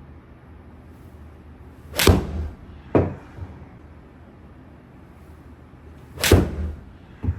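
Two golf shots hit with an iron off a hitting mat: two sharp, loud club-on-ball strikes about four seconds apart, each followed about a second later by a duller, smaller knock.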